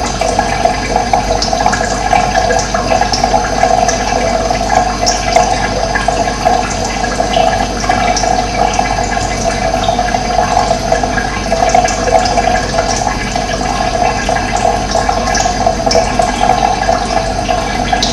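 Steady rush of running water, with brief high bird chirps scattered through it.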